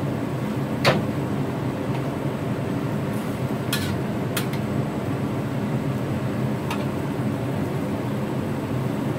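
A metal spatula clinks a few times against a black wok as squid and cabbage are stirred, the sharpest click about a second in. Under it runs a steady low hum.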